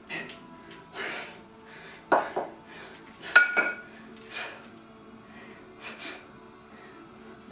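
A pair of 16 kg kettlebells knocking and clinking against each other during long cycle reps, the loudest a ringing metal clink about three and a half seconds in. Hard breaths come about every second or so between them.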